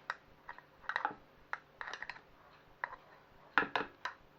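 Scattered light clicks and taps of a utensil against a mixing bowl, about ten at irregular intervals, while the hand blender is not running.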